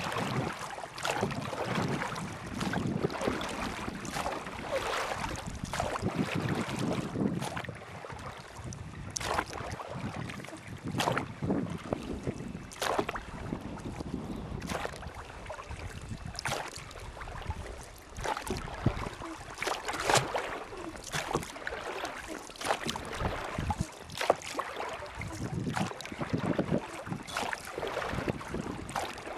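Water splashing and sloshing with wind on the microphone, broken by many irregular sharp knocks and splashes.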